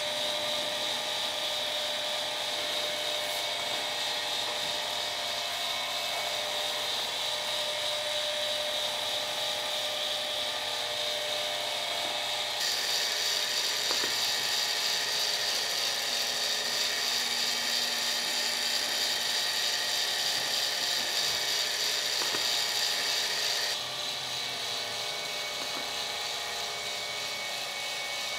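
Steady mechanical whir with a high whine from a motor-driven kinetic sculpture mechanism working, with a few faint clicks. The tone changes abruptly twice, about 12 and 24 seconds in.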